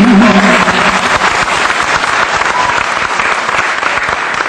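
Audience applauding, a dense patter of many hands that eases off slightly over time. The tail of a held male sung note ends about half a second in.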